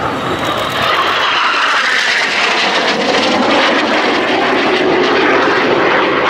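Jet noise of a low-passing Northrop F-5E fighter, its twin General Electric J85 turbojets: a loud continuous rush with slowly sweeping tones in it, growing slightly louder.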